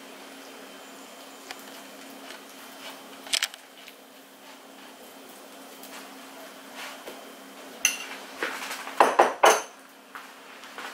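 Occasional clinks and knocks of kitchen utensils against a pan, with a cluster of louder knocks about nine seconds in, over a steady low hum.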